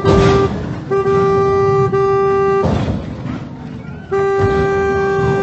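Car horn held down in long blasts of one steady pitch, three times, each lasting a second or more with short breaks between. Loud noisy rushes of street noise come near the start and about two and a half seconds in.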